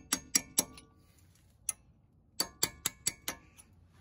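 Hammer tapping a tool held against the edge of a wheel hub's metal center cap, working its lip up so it can be pried off. The taps are sharp metallic clinks with a short ring: four quick ones, a single one, then five more in a row.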